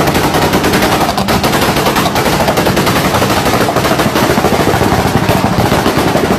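Mazda RX-7's rotary engine with its exhaust firing a rapid, unbroken string of loud pops and crackles as the car pulls away.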